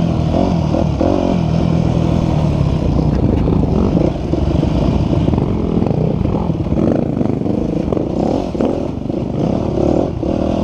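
Dirt bike engine running close up as the bike rides a rough trail, the revs rising and falling with the throttle.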